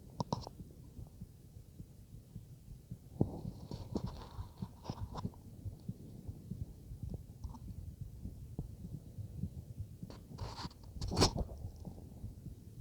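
Human heartbeat heard through a stethoscope as a low, muffled thudding. Louder scratchy crackles come in about three to five seconds in and again around ten to eleven seconds.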